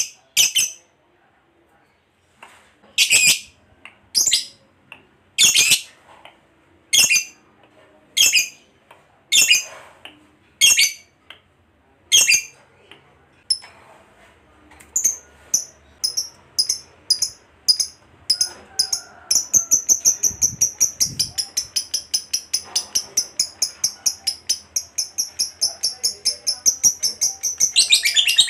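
Lovebird calling: a run of loud, shrill single calls about a second and a bit apart, then after a short pause it breaks into short notes that quicken into a long, rapid chattering trill. This is the 'ngekek' chatter prized in a singing lovebird.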